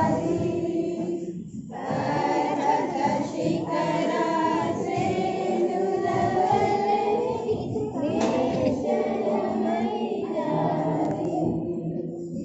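A group of people singing together: a congregation singing a hymn in many overlapping voices.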